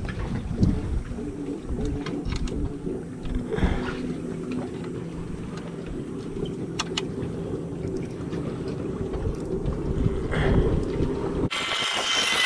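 Low wind rumble on the microphone with a steady low hum, and scattered light metallic clicks of an Allen wrench working bolts out of a jet ski's underside plate. About a second before the end it switches abruptly to a brighter hiss with faint high whistling tones.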